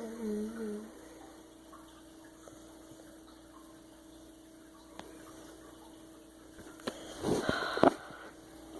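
Steady low electrical hum at one pitch. A short hummed voice sound opens it, and a brief burst of noise with a sharp knock comes about seven seconds in.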